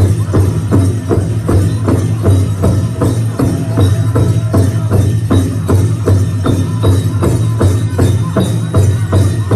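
Powwow drum beaten in a steady, fast beat of about three strokes a second, with powwow singing.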